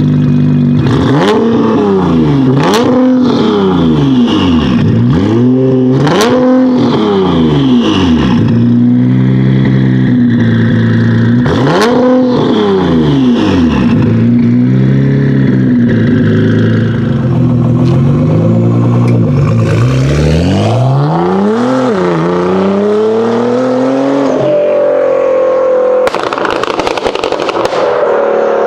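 Nissan GT-R R35 twin-turbo V6 idling and being revved in quick blips from a standstill, about eight rises and falls in pitch, with sharp cracks from the exhaust at some of the peaks. Near the end one longer rev climbs, followed by a steadier rising engine note.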